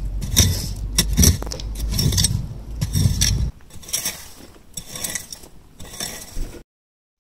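Digging in clay soil with a long-handled garden tool to lift potatoes: irregular knocks and scrapes of the metal head against soil and stones, with a low rumble under them for the first few seconds. The sound cuts off suddenly near the end.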